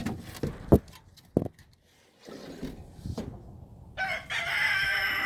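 A few sharp knocks and clatters as a wooden coop panel is worked loose, then a rooster crowing once, about four seconds in, in one long high call.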